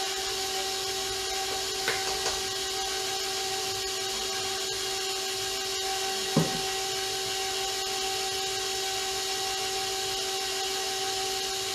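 Electric mixer with a flat beater running steadily at low speed, beating a thin royal icing mix, with a steady motor whine. A couple of brief knocks, about two and six seconds in.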